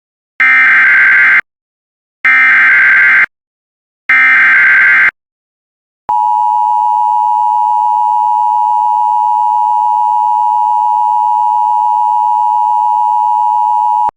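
Emergency Alert System header: three one-second bursts of buzzy digital data tones, then a steady high attention-signal tone held for about eight seconds, which stops abruptly near the end. It marks the start of a severe thunderstorm warning.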